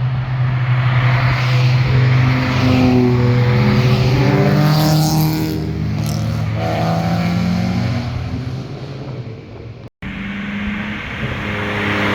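A car's engine passing by at speed on a winding road, its exhaust note rising and falling as it goes past. Just before the end the sound cuts off abruptly and another car's engine comes in.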